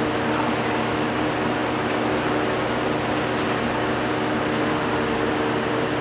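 Canarm Catalyst ceiling fan motor running on low in reverse, a steady hum with several tones over the rush of the blades. The owner puts its failure to reach full speed down to a bad capacitor.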